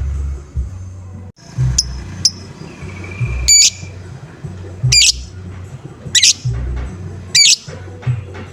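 Lovebird giving short harsh squawking calls, repeated about once every second and a quarter, the 'ngoek-ngoek' call used to provoke other lovebirds. A low, steady thumping beat runs underneath.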